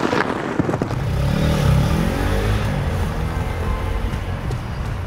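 A plastic bucket knocks a few times on the asphalt as it lands and starts rolling, then a passing motor vehicle's engine runs loudly, its pitch rising and falling.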